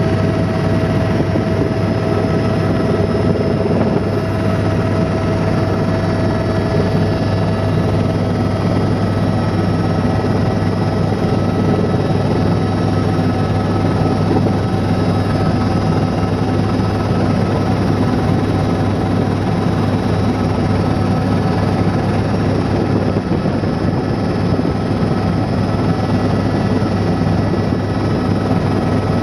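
Steady engine and rotor drone of a helicopter, heard from inside the cabin.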